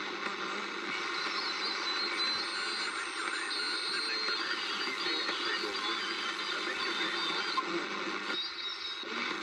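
Wartime R109T army receiver's built-in loudspeaker giving out a steady rush of static and band noise on the 80 m amateur band, with no readable station coming through.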